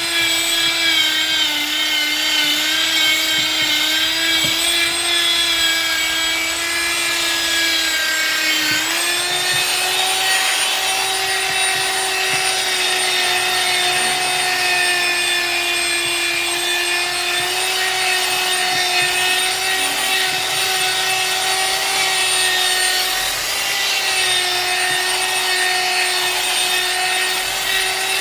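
High-speed electric motor of a handheld power tool running steadily with a high whine while working a wooden slice. The pitch dips briefly about nine seconds in, then settles slightly higher.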